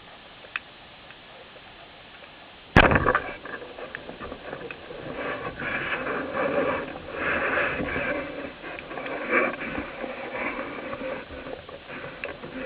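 A speargun fires underwater with a single sharp, loud crack about three seconds in, following a few faint ticks. It is followed by a long stretch of irregular scraping and crackling.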